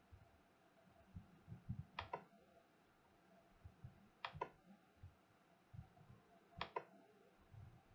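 Near silence with three faint double clicks, evenly spaced a little over two seconds apart, over scattered soft low thumps.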